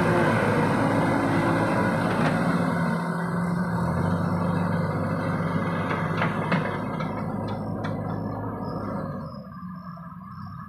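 Diesel engines of a JCB 3DX backhoe loader and a loaded truck running hard while the loader's bucket pushes the truck out of the mud. The engine note drops in pitch about four seconds in, a few light clicks come between six and eight seconds, and the sound fades near the end.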